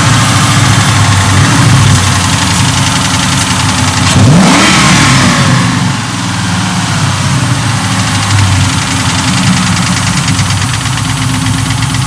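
Lincoln Mark VIII 4.6 L DOHC V8, swapped into a Mustang, idling and revved once about four seconds in. A ticking runs through the idle, which the owners take for a lifter tap from one cylinder head, not a rod knock.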